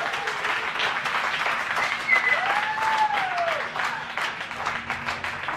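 A group of people clapping and cheering, with one drawn-out whoop that rises and falls about two and a half seconds in; the clapping eases off slightly near the end.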